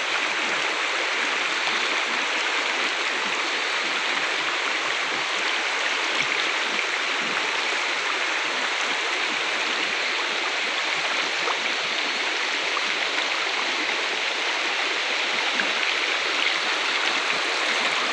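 Shallow, rocky river flowing fast over and around boulders in riffles: a steady, even rush of water.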